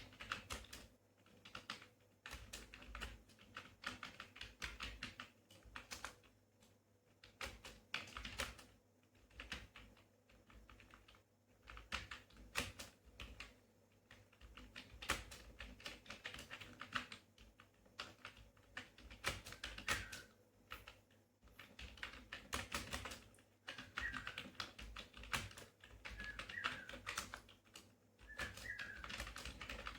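Rapid typing on a computer keyboard, keys clicking in fast uneven bursts with brief pauses between words and phrases. In the second half, a few short high chirps come in now and then.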